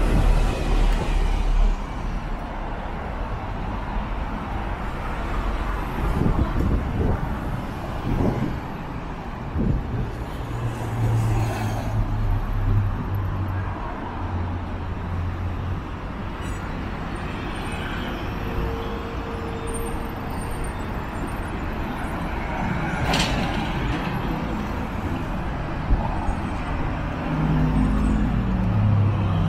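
Road traffic at a city intersection: cars driving past and engines running, with a brief hiss about three quarters of the way through.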